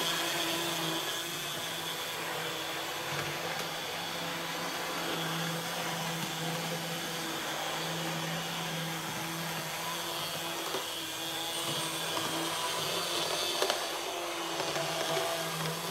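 N scale model locomotive running around the layout on quarter throttle (DCC speed step 31): a steady motor whir with wheel noise on the rails.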